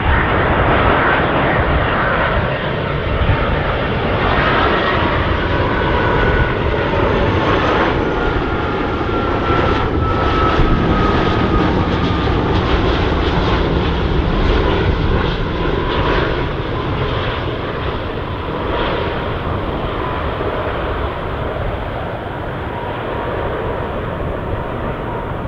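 Airbus A330 twin-engine jet airliner on final approach passing close by: a steady jet roar with a high engine whine that slides down in pitch as it goes past, easing off slightly near the end.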